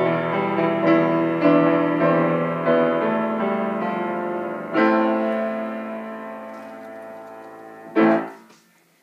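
Piano music. A chord struck about five seconds in rings on and slowly fades, then a short, loud struck chord near the end dies away.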